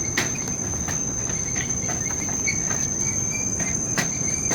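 Forest insects keeping up a steady high-pitched drone, with short chirps and a few sharp clicks over it.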